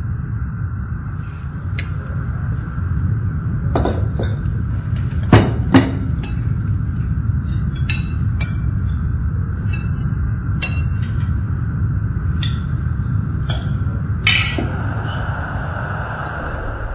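Cutlery and dishes clinking at a meal table: scattered, irregular light clinks of utensils on plates and glasses, with two louder knocks about five seconds in, over a steady low background hum.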